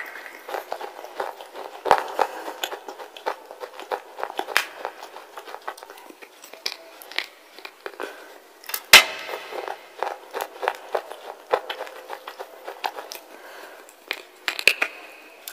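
Wet slate being bitten and chewed close to a lapel microphone: irregular sharp crunches and cracks, the loudest about nine seconds in.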